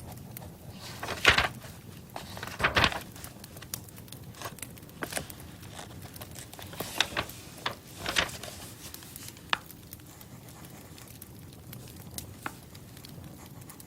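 Irregular crackling and crinkling: scattered sharp pops with a few louder rustling bursts, about a second in, near three seconds, and around seven and eight seconds.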